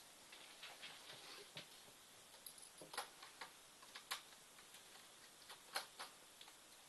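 Faint, scattered small clicks and ticks of a small Phillips screwdriver working screws out of a laptop's plastic bottom case, with a few sharper clicks among them.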